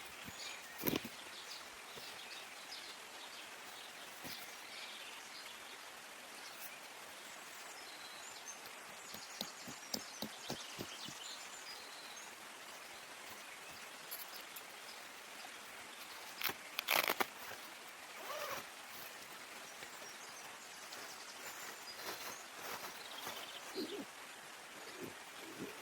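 Forest ambience: a steady background hiss with scattered bird chirps, broken by occasional knocks and rustles, the loudest a short cluster about two-thirds of the way through.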